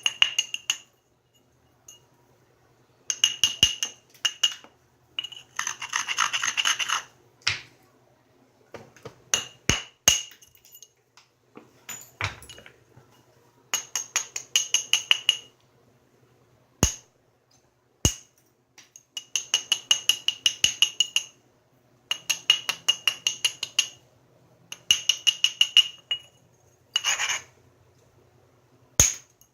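Flintknapping a stone preform: bursts of rapid clicking and scraping as a tool is worked along the edge to set up isolated striking platforms, with a few single sharp taps between the bursts. The stone gives a faint glassy ring.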